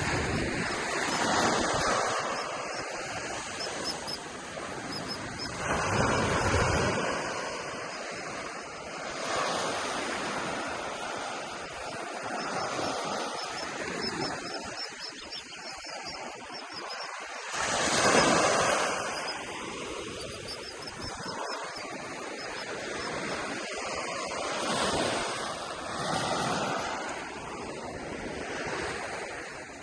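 Ocean surf breaking and washing up on the beach: a steady rush of water that swells with each wave every few seconds, loudest about two-thirds of the way through.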